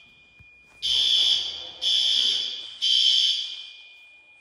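Fire alarm horns (System Sensor L-series horn strobes) sounding the temporal-three evacuation pattern: three blasts about a second apart, then a pause.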